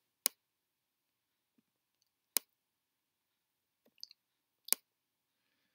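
A few sharp computer mouse clicks, roughly two seconds apart, made while dragging equalizer sliders. Between the clicks there is near silence.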